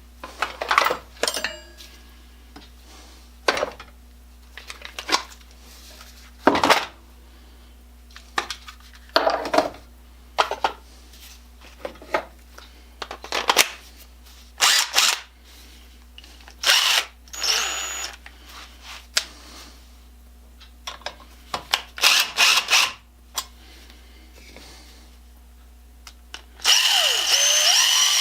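Workshop clatter: tools and metal parts knocked and set down in a string of short, sharp clanks. Near the end an electric drill starts up and runs steadily.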